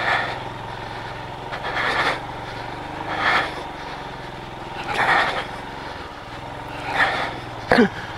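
Heavy breathing into the helmet microphone, one breath about every one and a half to two seconds, over the Royal Enfield Himalayan's single-cylinder engine running steadily underneath. A short voiced grunt comes near the end.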